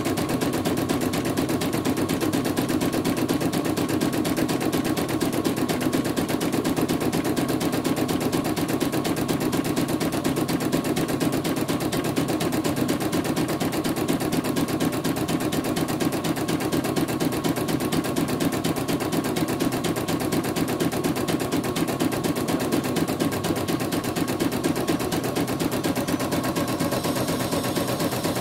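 CNY portable embroidery machine stitching, its needle clattering in a fast, steady rhythm as it runs a test embroidery design after repair.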